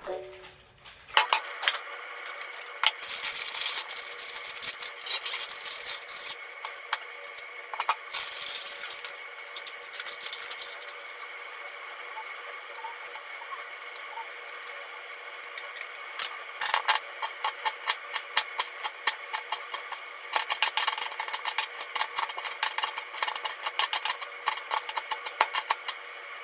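Kitchen knife cutting purple sweet potato and chikuwa on a wooden cutting board: scraping and rubbing early on, then quick runs of sharp taps and chops in the last ten seconds.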